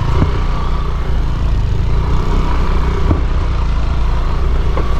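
Motorcycle running along a road, a steady low rumble of engine and wind on the microphone, with a few light knocks.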